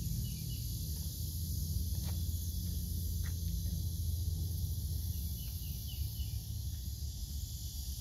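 Outdoor ambience: a low, uneven rumble of wind on the microphone, a steady high hiss of insects, and a few faint bird chirps.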